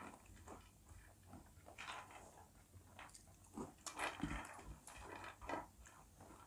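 Faint, irregular crunching and chewing of Kurkure corn puffs, with light rustling as fingers pick the pieces off the plates; the crunches are loudest about four seconds in.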